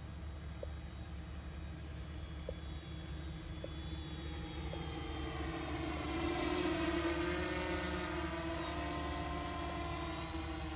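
Agricultural multicopter drone's propellers humming in flight, getting louder about halfway through as it comes overhead, then easing slightly, the pitch wavering a little as it manoeuvres.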